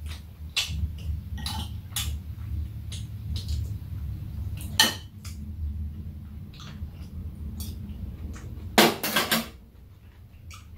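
Metal spoons and chopsticks clinking and tapping against bowls and a tray as two people eat, in scattered clicks with a louder clatter about five seconds in and another near the end.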